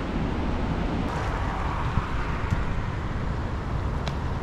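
Swollen spring river rushing steadily, with wind buffeting the microphone.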